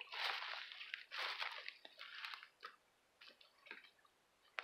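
Footsteps crunching through dry fallen leaves, roughly one step a second, louder in the first half and fainter after.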